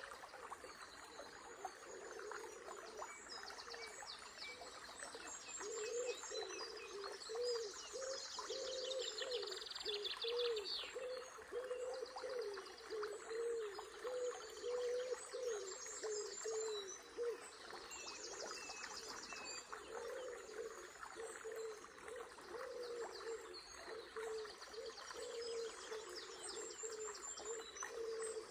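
Several songbirds singing, with many quick high trills and chirps overlapping, over the steady babble of a small river.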